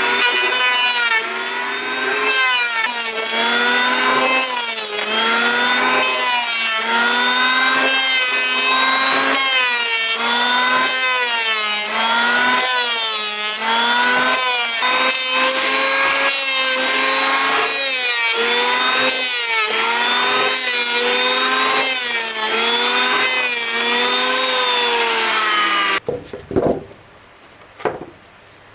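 Wood being sawn in steady back-and-forth strokes, the blade ringing with a pitch that sags and rises on each stroke. It stops suddenly near the end, followed by a few short knocks.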